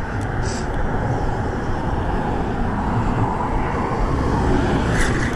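Steady wind rumble on the microphone mixed with road traffic noise from the highway bridge alongside.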